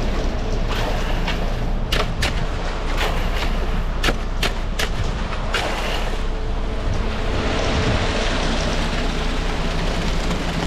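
Heavy engine of the concrete-pour machinery running steadily, with a quick run of sharp knocks or clanks about two to five seconds in.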